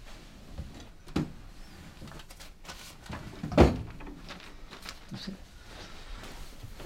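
A wooden sideboard cabinet being opened and shut: a light knock about a second in, then a louder thump about halfway through.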